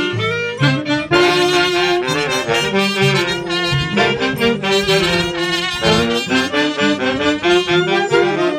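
A village folk orchestra's saxophone section and clarinet playing a lively melody together, note after note with no pause.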